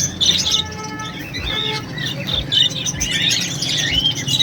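A crowd of caged budgerigars, cockatiels and other small parrots chirping and chattering at once, with one longer held call near the start.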